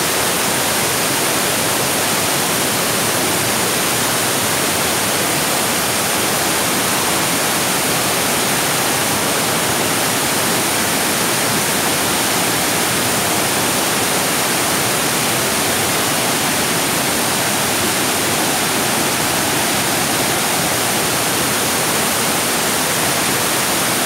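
Water of a multi-tiered waterfall cascading over stepped rock ledges, a steady rush of falling water.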